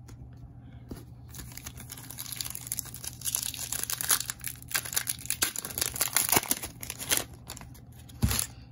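Foil wrapper of a Panini Donruss Optic basketball card pack crinkling and tearing as it is ripped open and handled, a dense run of crackles that swells in the middle and dies away near the end.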